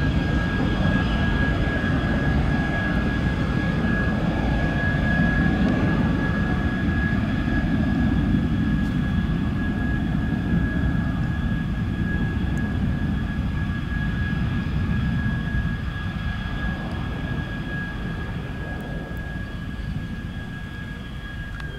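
de Havilland Venom's single Ghost turbojet running at taxi power: a steady high-pitched whine over a low rumble, fading over the last few seconds as the jet taxis away.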